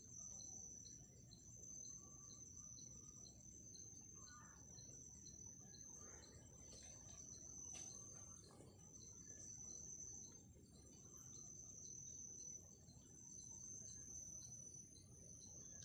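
Faint steady high-pitched insect trill in the forest, with a softer pulsing note beneath it, running unbroken.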